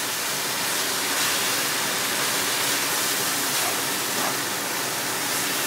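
Chopped red onion and ground spices sizzling in hot oil in a kadai on high heat, stirred with a spatula; a steady sizzle, the onions' water already cooked off.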